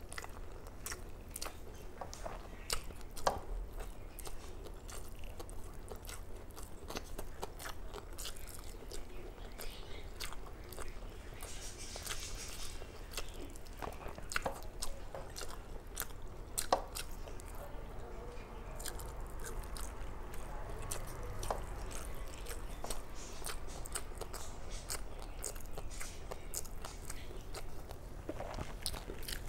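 Close-up eating sounds: a person chewing and smacking mouthfuls of rice and curry, with scattered sharp mouth clicks and a few louder bites.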